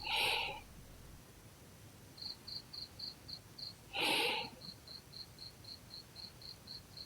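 Insect chirping, one thin high-pitched chirp repeated about four times a second. Twice, at the start and about four seconds in, a louder sound about half a second long stands out over the chirping.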